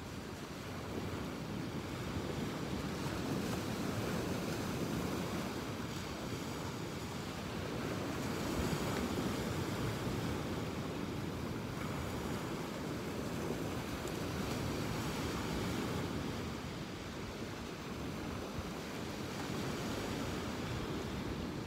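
Ocean surf washing onto a beach, a steady rushing that swells and eases every few seconds.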